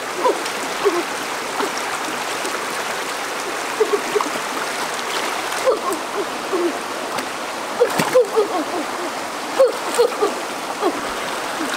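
Shallow rocky stream rushing steadily over stones, with splashing as a wooden stick is jabbed into the water. One sharp knock about eight seconds in, and faint short voice-like calls here and there.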